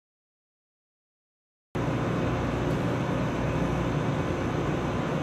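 Dead silence for nearly two seconds, then a steady rushing noise cuts in abruptly and runs on evenly, with no distinct strokes or pitch.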